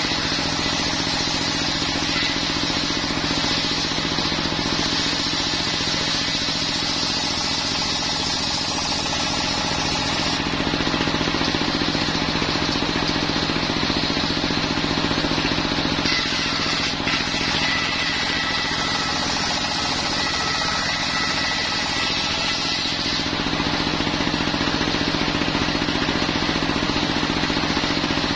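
A stationary diesel engine runs steadily, belt-driving a homemade circular sawmill blade that cuts coconut-wood planks. The higher cutting hiss of the blade comes and goes as planks are fed through: it drops off about ten seconds in, returns a few seconds later, and eases again near the end while the engine keeps on.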